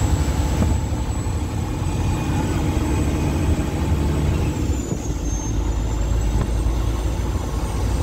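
Peterbilt truck's diesel engine running as the truck drives along, heard from inside the cab as a steady low rumble with road noise.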